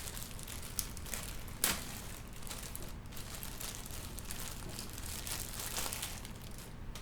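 Plastic packaging crinkling and rustling as it is handled, with a sharp click about a second and a half in.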